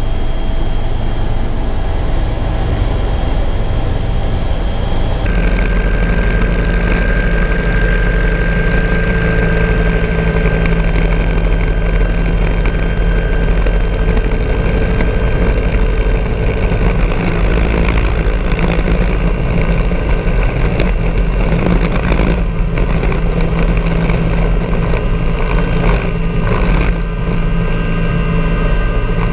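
Bell 412 twin-turbine helicopter running steadily in low flight, turbine and rotor noise loud throughout. About five seconds in the sound changes abruptly as the pickup switches from the cabin to a camera on the tail boom: the high turbine whine drops out and a duller, lower rotor and engine drone takes over.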